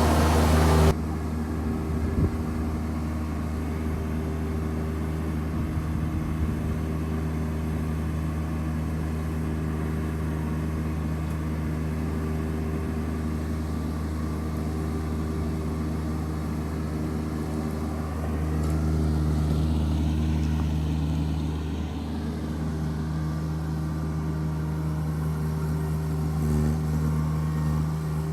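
An engine running steadily with a low drone, much like a vehicle under way. A louder first second cuts off abruptly, and the drone swells a little for a few seconds about two-thirds of the way through.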